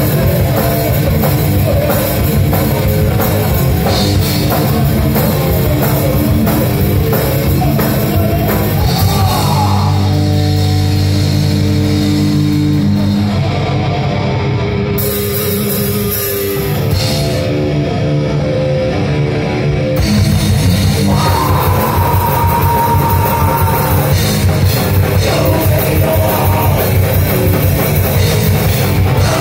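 Live heavy rock band playing loud: distorted guitars, bass and a pounding drum kit. About nine seconds in, the drums mostly drop out while the guitars hold low sustained chords; around twenty seconds the full band crashes back in with a high guitar line.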